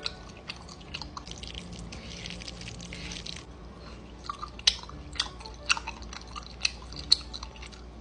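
Close-miked mukbang eating: a person chewing food, a stretch of soft mouth sounds at first, then a string of sharp clicky smacks in the second half.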